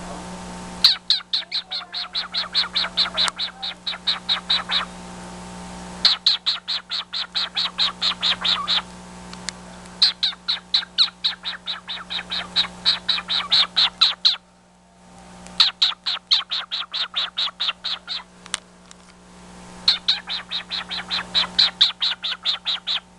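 Cockatiel making fast, croaky clicking calls, about five or six a second, in five bouts of three to four seconds with short pauses between them.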